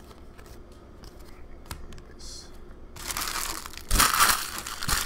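Foil trading-card pack wrapper crinkling as it is handled, starting about three seconds in and lasting about two seconds, loudest about a second after it starts. A few light card-handling clicks come before it.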